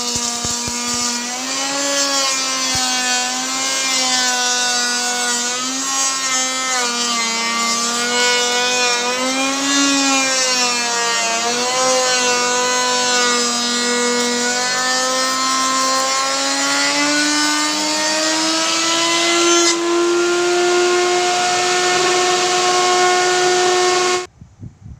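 Electric wood router cutting a groove in wood, its motor whine dipping and recovering in pitch as the bit takes load, rising steadily near the end, then cutting off abruptly about a second before the end.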